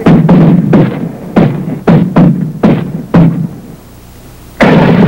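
A rapid, irregular series of about eight loud gunshots, each dying away quickly. Near the end comes a heavier blast that rumbles on.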